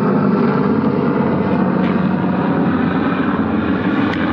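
Helicopter flying overhead: a loud, steady drone of engine and rotor with several even tones held throughout.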